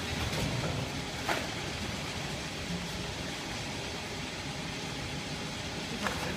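Automatic shrink-wrapping line of L-sealer and shrink tunnel running with a steady mechanical whir, with two sharp clicks, one about a second in and one near the end.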